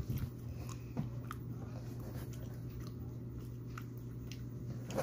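A person chewing food with the mouth closed, with faint scattered crunching clicks, over a low steady hum.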